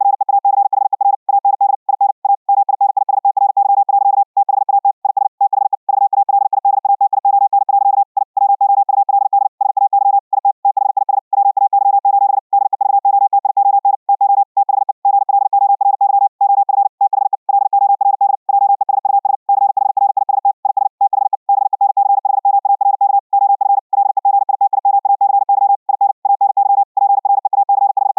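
High-speed Morse code (CW) at about 60 words per minute: a single steady mid-pitched tone keyed on and off very fast, with short breaks between words. It is the keyed tone as relayed over the internet in Vorbis-coded audio.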